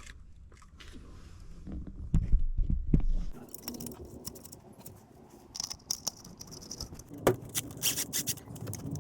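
Hands and tools working on car parts: scattered clicks, light knocks and scrapes, with dull thumps in the first few seconds and a sharper click about seven seconds in.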